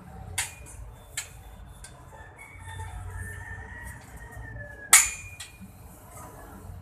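A rooster crowing one long drawn-out call. Sharp knocks come about half a second and a second in, and a loud metallic clank rings out right as the crow ends, about five seconds in.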